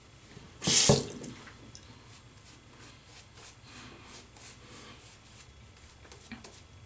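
A water tap runs briefly, about half a second, to add water to a shaving brush. After it come faint, soft swishes of the brush working the lather.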